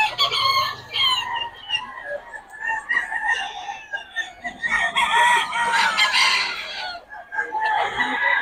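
Roosters crowing and clucking, with one long crow about halfway through.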